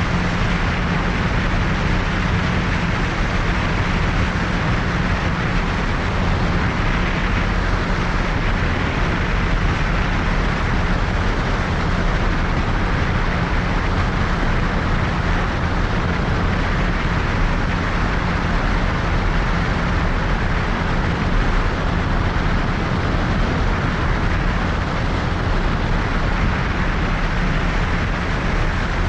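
Cessna 182's six-cylinder piston engine and propeller droning steadily in flight: a constant low hum under a rush of air noise.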